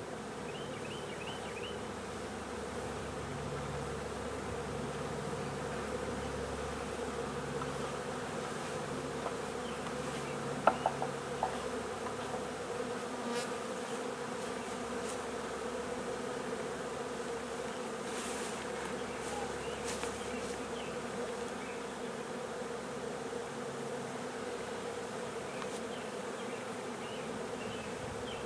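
A honeybee swarm buzzing steadily in a dense hum around a hive box just after being dumped in. A few sharp knocks come about ten to eleven seconds in.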